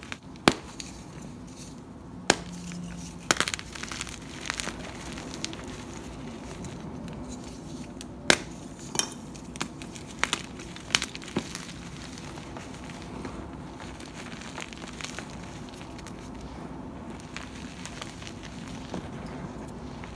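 Hands crushing blocks of gym chalk and charcoal: a soft crumbling crunch broken by sharp snaps as chunks break apart. The snaps come mostly in the first half.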